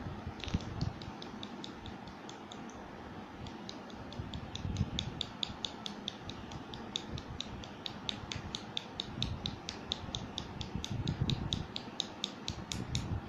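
A small glass roll-on attar bottle being shaken in the hands, making a quick, even run of light clicks several a second. It is mixing the perfume oil with the glycerine just added.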